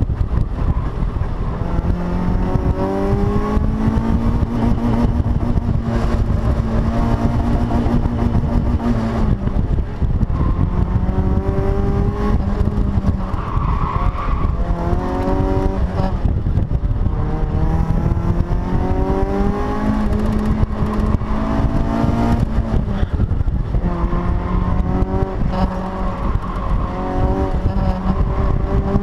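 Mazda Miata's four-cylinder engine driven hard, its pitch climbing again and again and then dropping back as the driver accelerates, shifts and brakes. Heard from the open cockpit over a steady rumble of wind and road noise.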